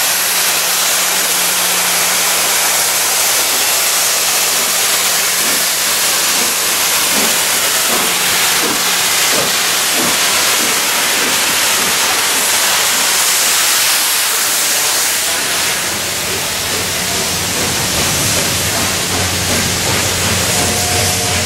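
Steam locomotive 60163 Tornado, a Peppercorn A1 4-6-2, venting steam with a loud, steady hiss. A whistle tone starts near the end.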